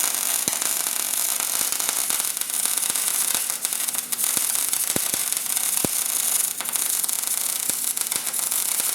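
MIG welder arc crackling and spattering continuously, with occasional sharp pops, during a first weld pass. The welder puts the rough result down to not having the machine set right.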